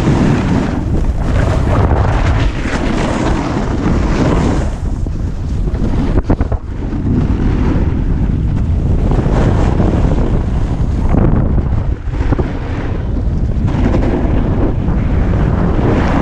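Wind buffeting the microphone of a snowboarder riding fast down a groomed slope, with the board scraping over packed snow in repeated surges.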